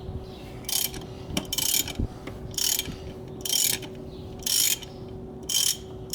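Socket ratchet wrench clicking in six short rasping bursts, about once a second, as it is swung back and forth to loosen a tight nut.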